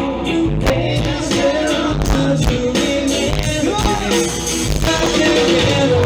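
Live pop-rock band playing: a woman singing into a microphone over electric guitars and drums, amplified through the stage PA.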